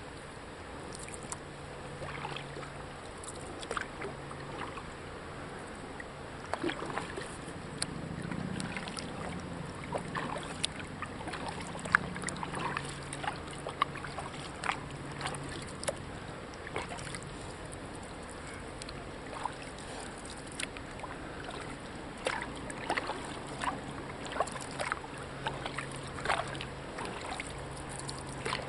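Kayak paddle in use: many small, irregular splashes and drips of water from the paddle blades and around the hull, over a steady soft hiss of wind and water.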